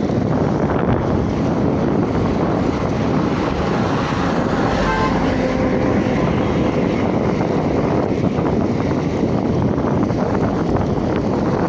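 Wind rushing over the microphone of a bike-mounted camera while the road bike is ridden along, a loud steady noise.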